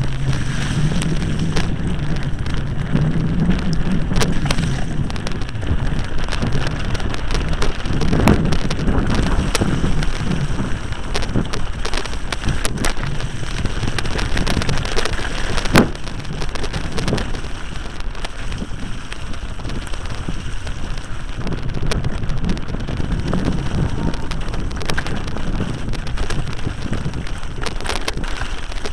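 Wind buffeting the microphone while a mountain bike rattles down a wet, stony track, its tyres crunching over rocks and mud. The ride is full of sharp knocks from the bike jolting over stones, the loudest about sixteen seconds in.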